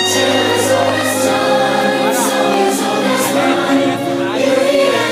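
Fireworks show soundtrack: orchestral music with a choir singing, loud and steady. Several short bursts of crackling hiss from the gold fireworks come through the music.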